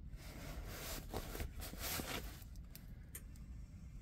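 Soft rustling as a diamond-painting canvas is handled, loudest between about one and two seconds in, followed by a single light click.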